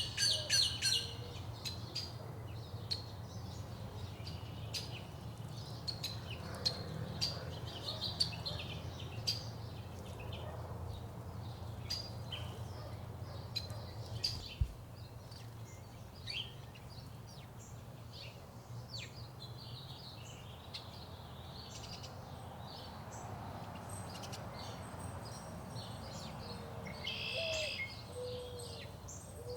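Several backyard songbirds chirping and calling, with short notes scattered throughout, a quick burst of calls right at the start and a louder call near the end, over a steady low rumble.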